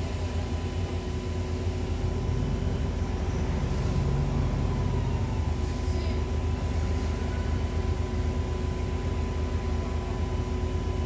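A bus engine idling, heard from inside the passenger cabin: a steady low hum with a faint steady whine above it.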